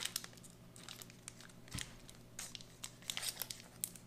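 Chocolate bar wrapper crinkling faintly in scattered short bursts as it is handled and cut open with a folding knife.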